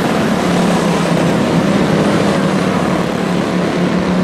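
Several quarter midget race cars' small engines running together at a steady pitch as the pack laps a short oval.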